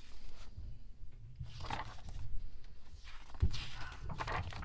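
Pages of a paper photo book being handled and turned, two soft rustling swishes, with a short knock from the book about three and a half seconds in.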